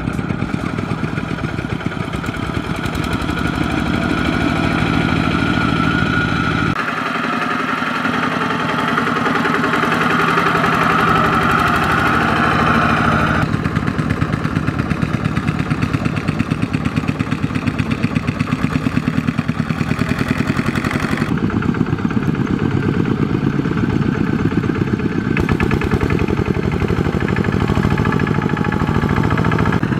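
Two-wheel walking tractors' single-cylinder diesel engines chugging in a rapid, even beat as they pull loaded trailers through mud, heard in several clips cut together, so the engine tone changes abruptly a few times.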